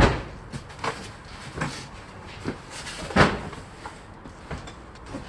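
Irregular knocks and clunks of boxes and household goods being handled and set down, about six of them, the loudest about three seconds in.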